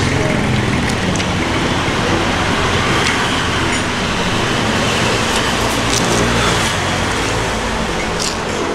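Steady road traffic noise from passing vehicles, with a few light clicks over it.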